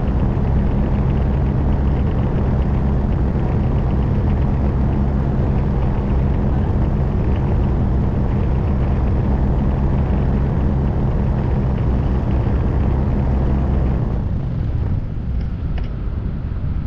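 An engine running steadily with a low, even hum, which drops away about fourteen seconds in.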